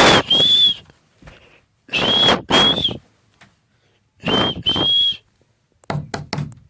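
Pet parrot giving three pairs of shrill whistled calls, two notes each, about two seconds apart, then a quick run of short chirps near the end.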